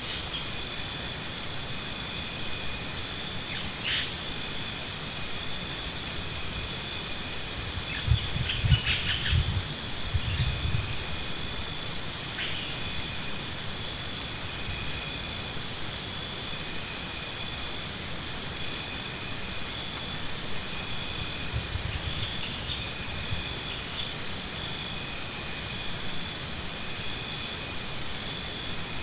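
Insects trilling in rapid pulsing phrases of a few seconds each, repeating, over a steady high-pitched insect hum. A few dull low thuds come about nine to eleven seconds in.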